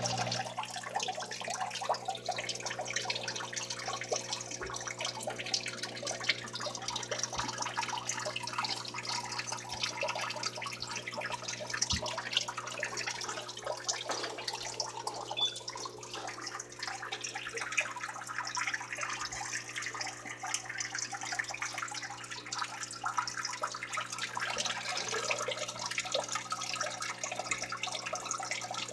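Water running and trickling steadily over a constant low electrical hum.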